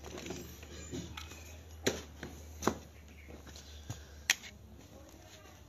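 Plastic toy cars being handled: a few sharp clicks and knocks, roughly a second apart, the last one the sharpest.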